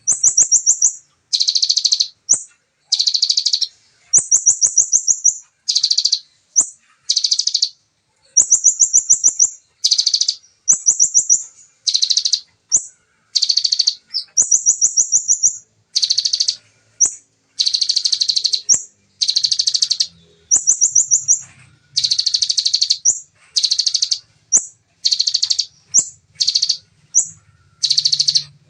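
Bar-winged prinia (ciblek) singing its rapid 'tembakan' song. The song comes in bursts of fast, high trilled notes, roughly one phrase a second with short gaps between, and some of the phrases are only brief chips.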